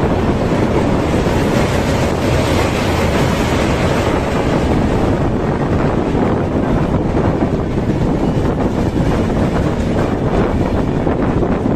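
A train passing close by: a steady, loud rumble and rush of noise with faint clicks in the last few seconds, with wind buffeting the microphone.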